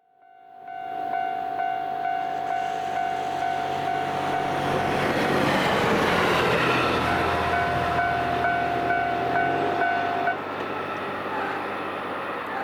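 Japanese level-crossing warning alarm sounding a steady repeating tone while a JR Hokkaido H100 series DECMO diesel railcar passes over the crossing. The train's rumble and wheel noise swell to a peak midway, and the alarm cuts off suddenly about ten seconds in, once the train has cleared.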